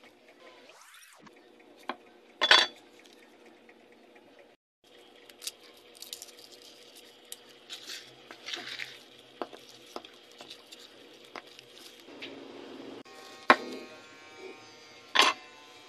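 Scattered clicks and knocks of a knife and cleaver on a wooden chopping board while shallots and garlic are handled, peeled and cut. There are a few sharper, louder knocks, two of them close together near the end as the cleaver chops the shallots.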